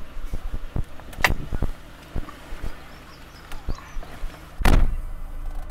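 Ford Transit minibus engine idling, heard from inside the cab, with scattered clicks and knocks and one loud thump near the end.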